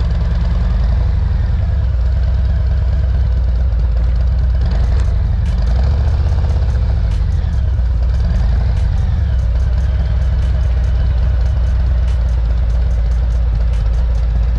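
Harley-Davidson Street Glide Special's Milwaukee-Eight V-twin engine running, a loud, steady, deep rumble.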